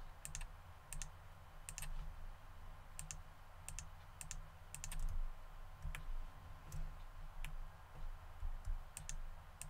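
Irregular sharp clicks of a computer mouse and keyboard keys, a dozen or more with a second or so between most of them, over a faint low hum.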